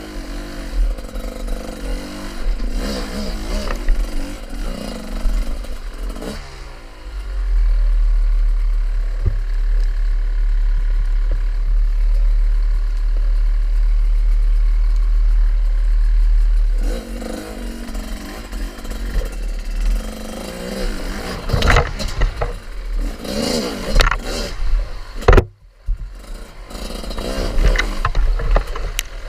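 Off-road motorcycle engine revving up and down. For about ten seconds in the middle a steady low rumble covers it; then the revving comes back with some clattering.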